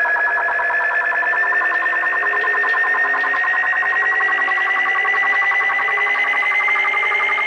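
Electronic intro sound: a warbling tone with several overtones, slowly rising in pitch, over a faint low pulse that comes and goes about once a second.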